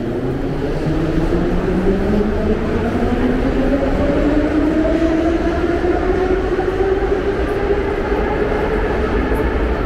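Metro train pulling out of the station: its traction motors give a whine that rises steadily in pitch as it gathers speed, over a low, steady rumble.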